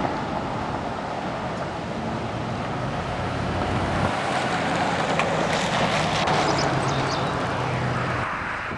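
Road noise inside a moving car: a steady engine hum under tyre and wind noise. It drops away suddenly near the end.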